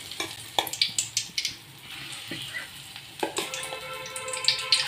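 Egg vadas (urad dal and egg batter fritters) deep-frying in hot oil, sizzling steadily with sharp crackles and pops. A steady tone sounds in the background over the last second and a half.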